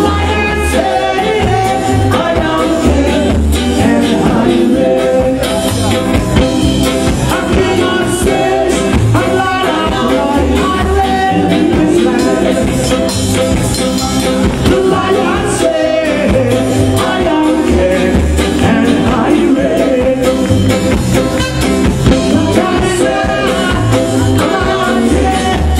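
Live reggae band playing a song with singing over a steady beat, with bass, drums, electric guitar and keyboards.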